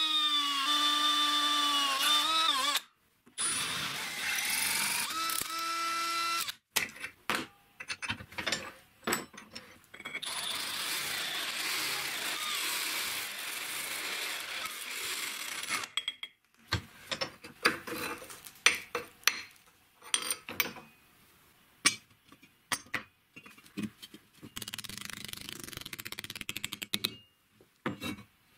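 Electric drill boring through a steel plate, first with a small twist bit and then widening the hole with a step drill bit; the motor's whine drops in pitch as the bit bites into the metal. For the last third or so, the drilling gives way to scattered clicks and clinks of metal being handled.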